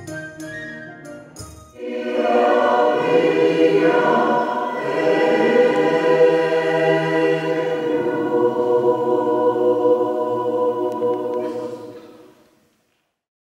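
A few sharp struck instrumental notes, then a choir singing a slow passage in sustained, full chords. The singing fades out near the end.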